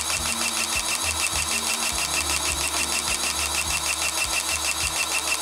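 Cordless battery grease gun running steadily, its pump stroking about five or six times a second as it forces grease into the track tensioner cylinder of a Kubota U35-4 mini excavator to re-tension the track.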